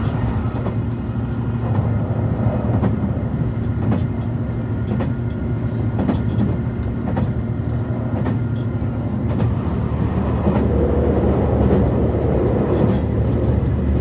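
Cabin noise inside a JR Shikoku 2700 series diesel railcar under way: a steady low drone from the diesel engine and the running of the wheels on the rails, with scattered light clicks.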